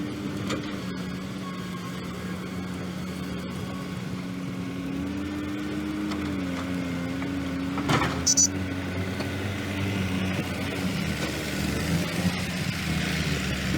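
Diesel engine of heavy earth-moving machinery running steadily, its pitch shifting slightly around the middle, with one sharp knock about eight seconds in.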